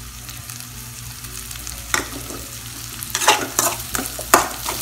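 Carrots and green beans frying in oil in a kadai over raised heat, a light steady sizzle. A metal ladle clicks once about two seconds in, then knocks and scrapes against the pan in a quick run of sharp clicks over the last second and a half.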